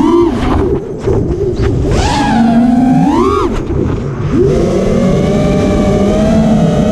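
Brushless motors and tri-blade props of a 5-inch FPV quadcopter whining, the pitch rising and falling with the throttle. The throttle drops briefly about a second in and again around three and a half seconds in, then the whine swells back up.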